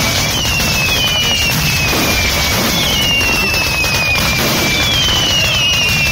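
Fireworks batteries firing at close range: a continuous crackle of rapid shots, with whistling fireworks going off about once a second, each whistle falling in pitch and overlapping the next.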